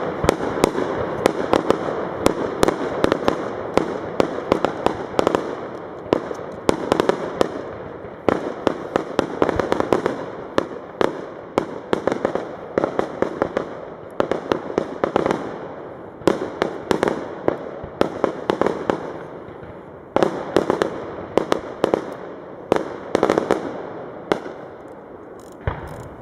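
Fireworks display: aerial shells bursting in rapid succession, many sharp bangs over a continuous rushing crackle, swelling and easing in waves every couple of seconds.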